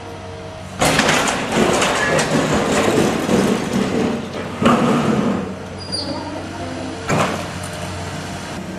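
Building demolition: masonry and rubble crashing and grinding as the structure is broken down, starting suddenly about a second in, with further surges about halfway and near the end. A machine's engine hums steadily underneath.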